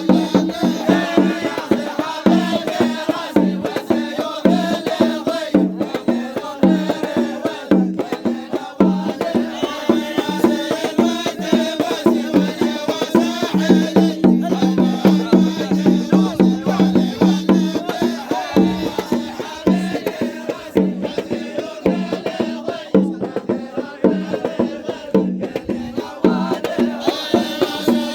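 Instrumental folk music: a steady rhythm of hand percussion and rattles over held low notes, with no singing.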